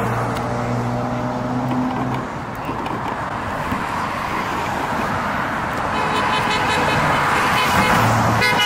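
Road traffic passing steadily, with car horns honking several times near the end.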